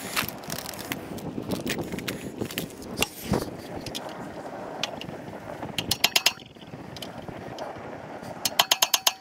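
Hands working metal hardware by hand, with rustling and small knocks, and two quick runs of rapid metallic ratchet-like clicking, about six clicks each, roughly six seconds in and again near the end.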